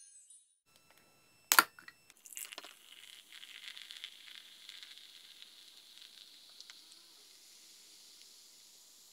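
A can of cola cracked open with one sharp pop about a second and a half in. Then the cola is poured into a glass mug, with a steady high fizz of carbonation.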